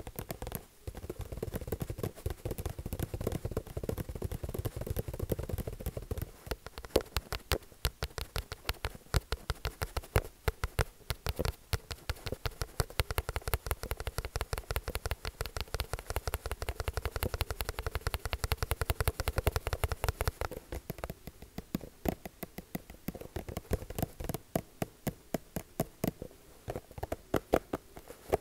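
Quick tapping on a hard surface, several taps a second in an uneven run, some taps sharper and louder than others.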